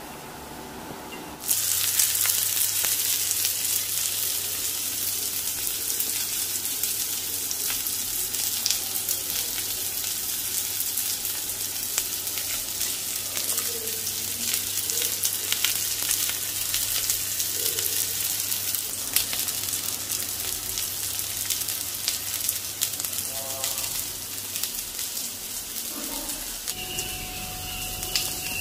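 Masala-coated sardines frying in oil on a flat tawa: a steady, dense sizzle full of fine crackles, which starts abruptly about a second and a half in.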